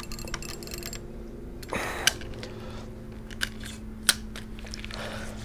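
Fishing rod and spinning-reel handling noises: a brief rustle about two seconds in and a few sharp, irregular clicks, over a faint steady hum.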